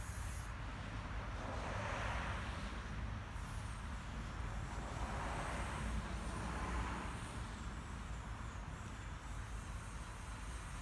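Road traffic on a wet road: tyre hiss from passing cars swells and fades a few times over a steady low rumble.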